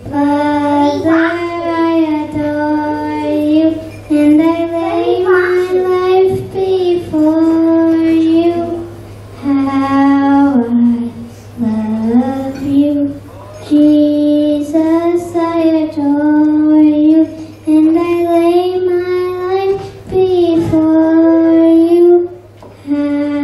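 A young girl singing a hymn solo and unaccompanied into a microphone, amplified through a PA speaker, in long held notes with short breaks for breath between phrases. A faint steady low hum runs underneath.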